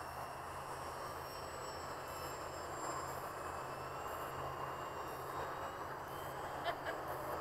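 Electric motor and propeller of a Night Walrus RC plane flying at a distance: a faint high whine that drifts slowly in pitch over a steady hiss, with a short tap near the end.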